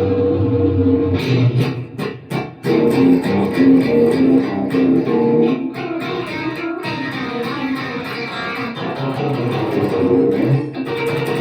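Guitar music: plucked guitar notes playing steadily, with a couple of short breaks about two seconds in.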